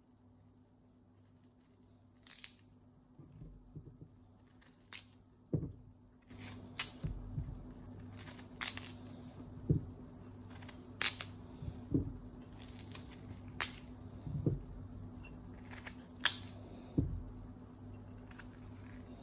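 Kitchen preparation noises: irregular dull knocks and sharp clicks, about one every second or two, over a steady low hum.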